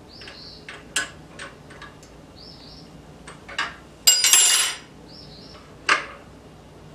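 Metal clinks and knocks from handling metal tools and parts, the loudest a brief ringing metallic rattle about four seconds in. A faint short chirp repeats every two to three seconds behind it.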